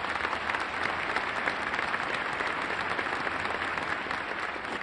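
A large crowd applauding, many hands clapping at once; the applause begins to die away near the end.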